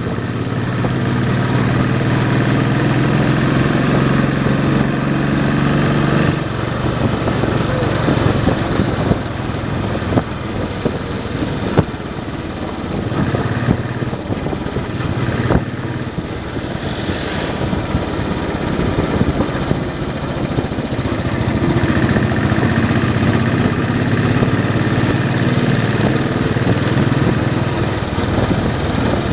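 Royal Enfield Bullet 500's single-cylinder engine running while the motorcycle is ridden, heard from the rider's seat. Its note is steady for about the first six seconds, then rougher and less even.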